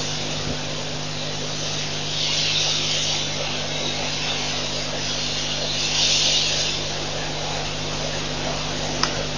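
Steady electrical hum and hiss. A higher hiss swells and fades about every three to four seconds, and there is a single short click near the end.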